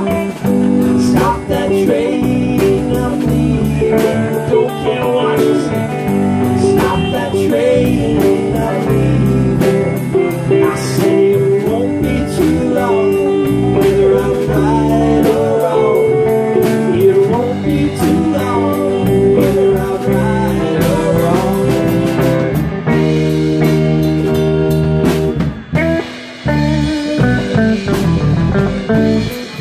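Live band playing bluesy rock: electric guitar with bent notes over a drum kit and bass, through amplifiers. The band briefly drops back near the end.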